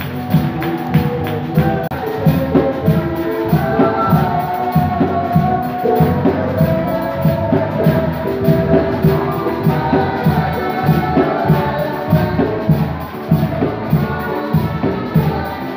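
Upbeat church worship music with a steady drum beat and singing, played over loudspeakers.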